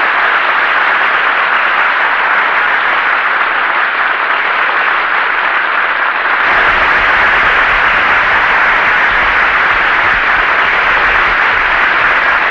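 Studio audience applauding steadily. About halfway through, a low hum suddenly comes in underneath the clapping.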